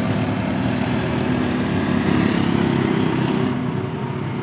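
Small motor-scooter engine running under load on a steep uphill climb, struggling to pull up the slope; bystanders think it is probably running out of fuel.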